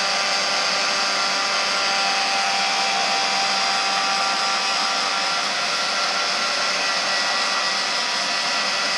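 Electric heat gun running steadily, its fan blowing hot air in an even rushing hiss with a faint steady whine, used to heat wrapped vinyl so it sets in its stretched shape.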